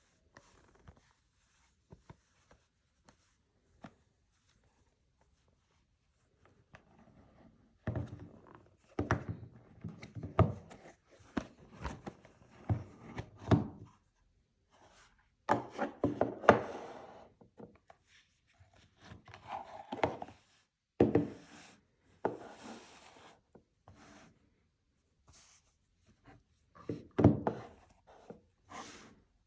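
Packaging being handled during an unboxing: a few faint clicks at first, then from about eight seconds in, irregular bursts of rubbing and sliding with light knocks as the box and its wrapping are handled.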